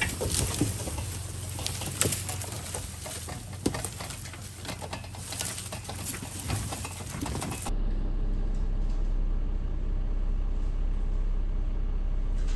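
Jeep Gladiator and small trailer rolling over fallen branches and dry leaf litter: twigs crackling and snapping under the tyres over the low, steady running of the diesel engine. About two-thirds through the sound changes abruptly to a steady low hum.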